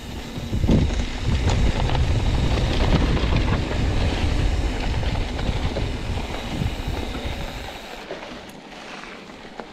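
YT Capra full-suspension mountain bike rolling fast down a dirt trail: a loud rumble of tyres on dirt with the bike rattling and clattering over bumps. It eases off about eight seconds in.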